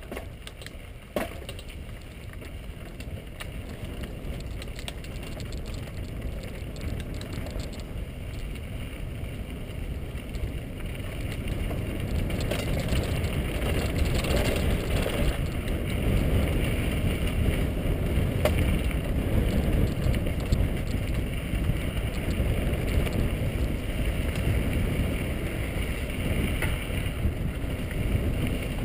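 Mountain bike rolling fast down a dirt trail: steady rumble of wind on the action camera's microphone and tyres on loose gravel, growing louder as speed picks up from about twelve seconds in. A single sharp knock about a second in.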